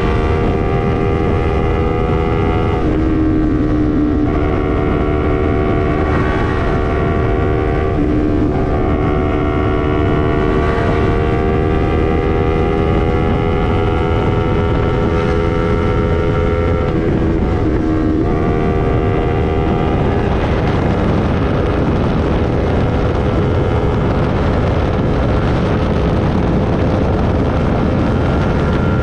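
Yamaha MT-03's parallel-twin engine through an SC-Project full exhaust system, ridden at speed, its pitch dropping and climbing again several times as the rider shifts or rolls the throttle through curves. Wind noise on the microphone runs under it.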